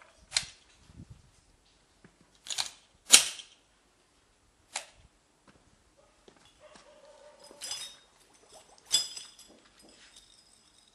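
Glock pistol fired underwater: about six sharp cracks at irregular intervals, the loudest about three seconds in.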